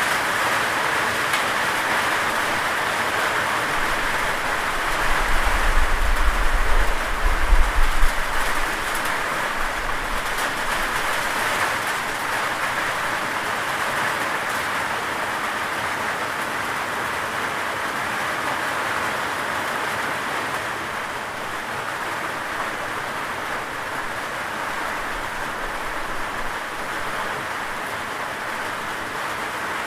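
Steady rain falling, a dense even hiss. About four seconds in a low rumble swells for a few seconds, then fades.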